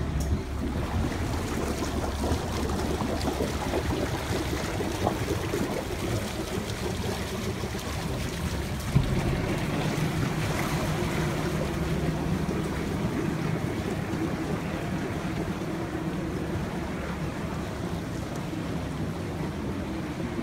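Motor water taxi's engine running slowly close by, with water sloshing against the hulls and wind on the microphone. A steady low engine hum is clearest through the middle.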